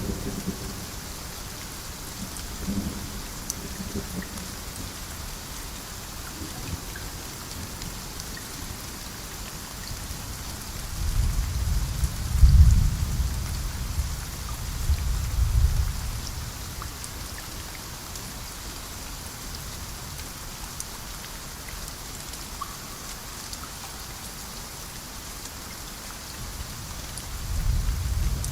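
Steady rain falling, a constant hiss, with rolls of thunder rumbling low about 11 seconds in, lasting several seconds, and starting again near the end.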